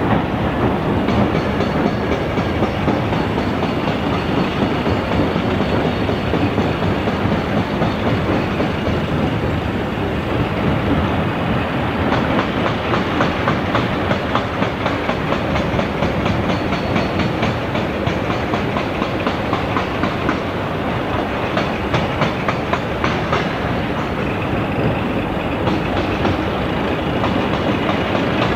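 A Caterpillar wheel loader's diesel engine working steadily with a heavy mechanical clatter. Broken granite rock pours from the loader's bucket into the steel body of a dump semitrailer at the start and again near the end.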